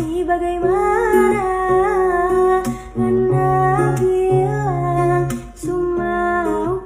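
Background music: a song with a sung melody over plucked guitar and a steady bass line.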